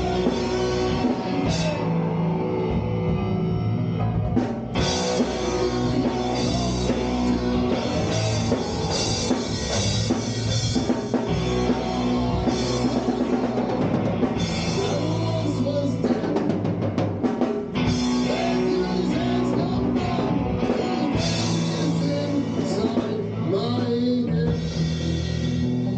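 A rock band playing live: drum kit and electric guitars.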